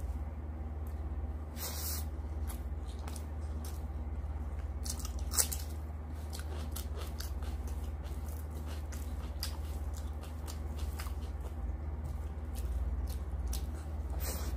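Fingers mixing and squishing rice on a metal plate: wet squelching with many small, sharp clicks and smacks. Near the end a handful is put in the mouth and chewed. A steady low hum lies underneath.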